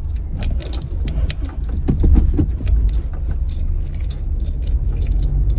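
Inside a car cabin: a steady low rumble of the car rolling slowly, with many short clicks and rattles as it eases over a large speed bump.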